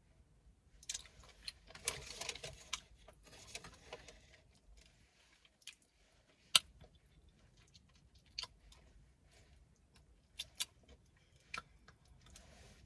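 Close-up mouth sounds of eating fried chicken: chewing and gnawing meat off the bone. Bursts of wet chewing early on, then scattered sharp smacks and clicks, the loudest about six and a half seconds in.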